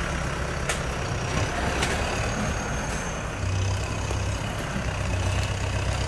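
Heavy vehicle's diesel engine running steadily, picking up a little about three and a half seconds in, with a few light clicks.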